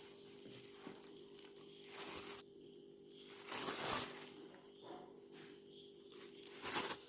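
Maida (all-purpose flour) poured from a measuring cup into a mixing bowl: three soft hissing pours, faint, over a low steady hum.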